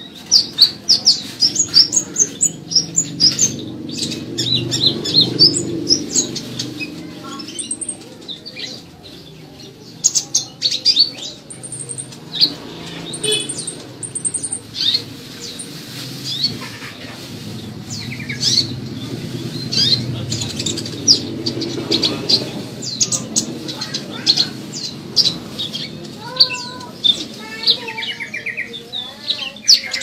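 Purple-throated sunbird chirping in quick runs of short, sharp, high notes, with a steady low rumble in the background.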